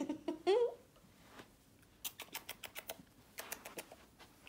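Puppies scrambling over a person on a carpet, making quick bursts of soft clicking and scratching twice in the middle. A short high vocal squeal comes right at the start.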